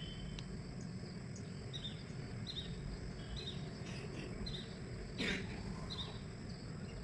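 Steady high-pitched insect drone, typical of crickets, with a run of short chirps repeating roughly once a second, and a single brief knock about five seconds in.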